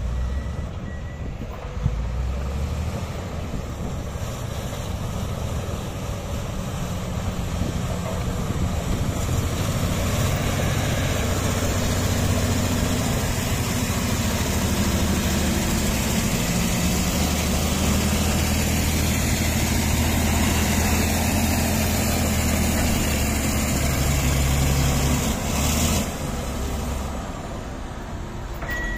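Komatsu D155A bulldozer's diesel engine running under load as it pushes earth, getting louder about eight seconds in and easing off near the end.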